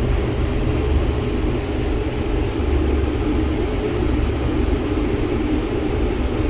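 Case IH combine running steadily under load while harvesting wheat: an even, low engine-and-machinery drone heard from inside the cab.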